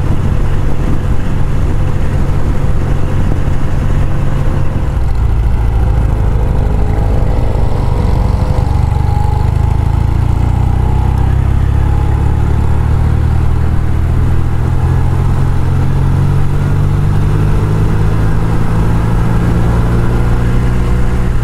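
Norton motorcycle engine running under way, heard from the rider's seat with steady wind and road noise. A few seconds in, the engine note changes and climbs again as the bike takes a bend and accelerates.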